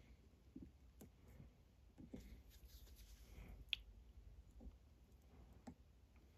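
Near silence with faint clicks and taps of small hand tools trimming thin speaker wire leads; one sharper snip a little past halfway.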